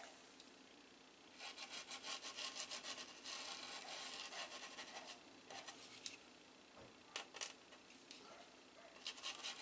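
Rapid scratchy scrubbing strokes on a circuit board while alcohol-dissolved solder flux is cleaned off the soldered joints. Two spells of scrubbing, with a few light taps in the gap between them.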